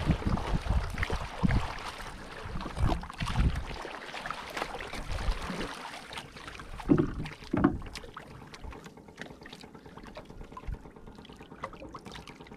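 Wooden paddle strokes splashing water beside a small outrigger canoe, with wind on the microphone. About seven seconds in come two dull knocks, and then only quieter water lapping with faint small clicks.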